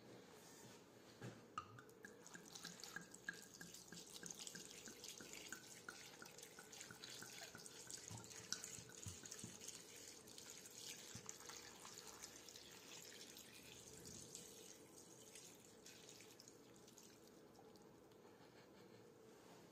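Red wine poured from a bottle onto raw rooster pieces, vegetables and herbs in a pan, a faint splashing trickle that fades out after about fifteen seconds.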